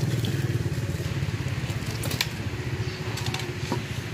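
A small engine idling with a steady, rapid low putter that eases off slightly, with a couple of light clicks over it.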